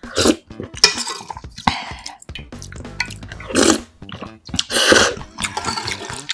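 Close-miked slurping of spicy instant jjamppong ramen: broth sipped from a spoon and noodles sucked up, in about five sharp slurps, the last two the loudest.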